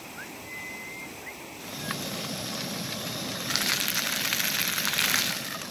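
Food frying in a pan on a single-burner propane camp stove: a steady sizzling hiss with crackling that sets in about two seconds in and gets much louder for a couple of seconds past the middle.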